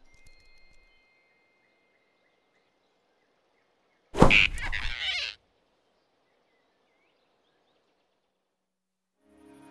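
Animated-film sound effects: near silence with faint forest background, broken about four seconds in by one sudden loud burst of noise lasting just over a second as the big rabbit grabs the flying squirrel on its branch.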